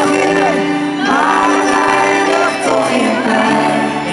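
Live pop band playing: male lead vocals sung in Dutch over acoustic guitar and keyboard accompaniment, heard through the hall from the audience.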